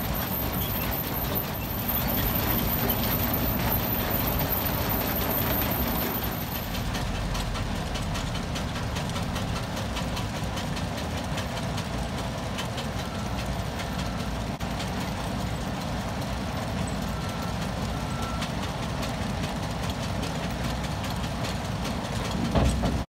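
Heavy machinery and truck engines at a sugar beet piler running steadily. A high whine sits over the first six seconds or so, and a few short beeps come in the second half. The sound cuts off abruptly just before the end.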